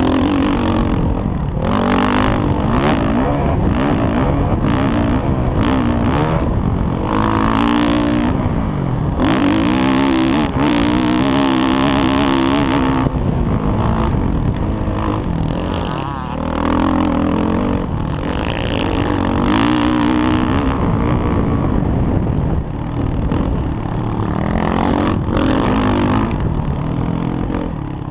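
Motocross dirt bike engine, heard close up from the rider's own bike, revving up and falling back again and again as the throttle is opened and closed through the track's jumps and turns.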